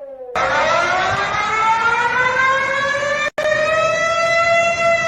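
Warning siren winding up, its pitch climbing steadily and then easing slowly down, over a steady hiss. It cuts in abruptly just after the start, right as a cleaner falling siren tone ends, and drops out for an instant a little past halfway.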